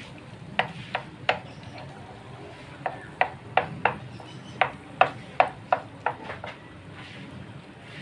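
Spatula knocking and scraping against the pan in about a dozen sharp clicks, in irregular runs, as an egg is scrambled into the frying noodles; the clicks stop about six and a half seconds in.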